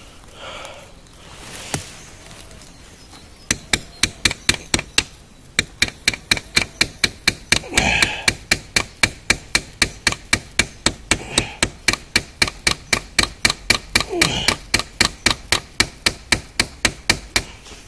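A hammer strikes the Nedfoss full-tang bushcraft knife lodged in a tree trunk, driving the blade deeper into the wood. It is a long, quick series of blows at about four a second, starting about three and a half seconds in.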